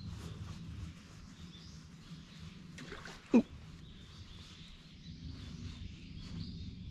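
A black bass striking at a lure at the water's surface: one short, sharp splash about three seconds in, a strike that fails to hook the fish. A low steady rumble lies under it.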